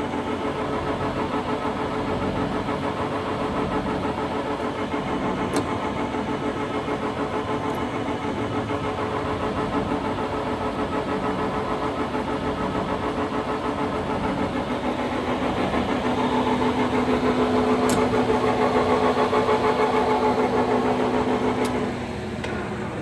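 Colchester Model 25 engine lathe with a 15 hp motor, running with a steady gear whine while the carriage travels under power feed. It grows louder for several seconds near the end, then drops off about a second before the end.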